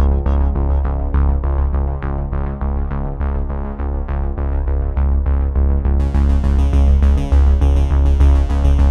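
Electronic background music with synthesizer and a steady beat. It sounds muffled at first, then the full bright sound comes back suddenly about six seconds in.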